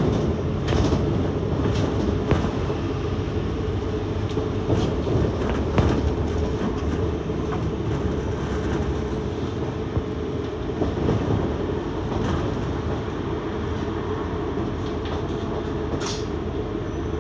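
Double-decker bus in motion, heard from its upper deck: a steady low rumble of engine, drivetrain and road noise, with a few rattles and clicks from the bodywork, one sharper near the end.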